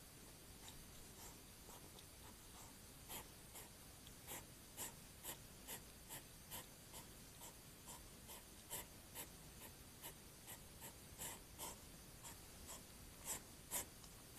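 European hedgehog rustling through short lawn grass as it forages, a run of soft scratchy rustles about two a second that grow louder near the end.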